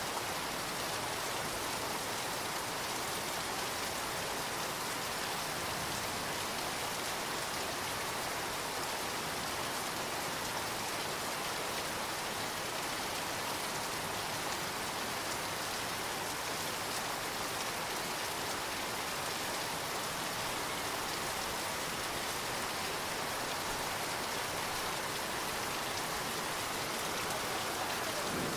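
Steady rain falling, an even hiss of many drops that holds constant throughout.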